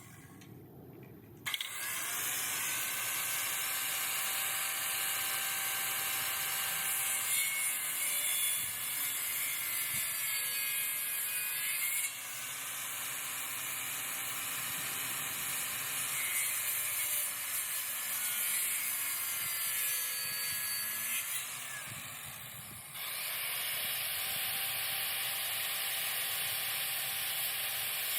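Handheld circular saw running and cutting through thick wood. It starts sharply about a second and a half in, and its whine dips and recovers as the blade bites. The sound changes abruptly around twelve seconds and again around twenty-three.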